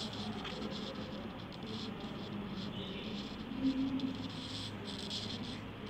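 Irregular scratchy rustling of paper being handled and rubbed flat as glued paper cutouts are pressed onto a sheet, over a low steady hum.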